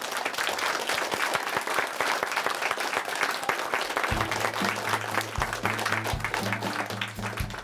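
Group of children clapping continuously. About four seconds in, music comes in beneath the clapping.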